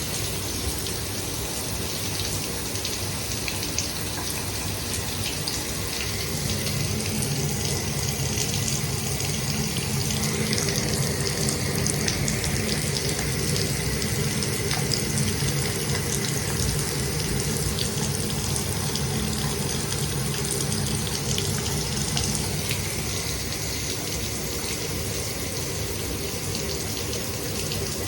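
Shower running: a steady stream of water spraying and splattering, with a low rumble that grows stronger about six seconds in and eases off again near the end.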